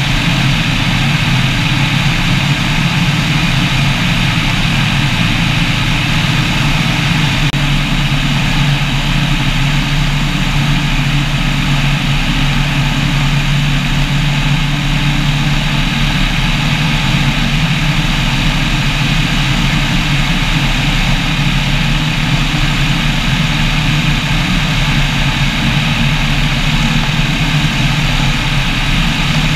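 An ultralight trike's pusher engine and propeller running steadily in flight, a constant low drone mixed with the even rush of air past the wing.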